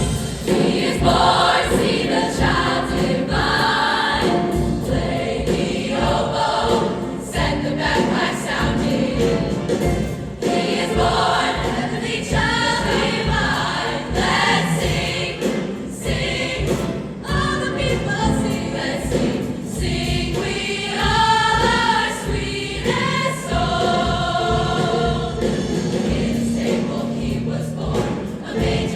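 A choir singing, with accompaniment that keeps a steady low beat.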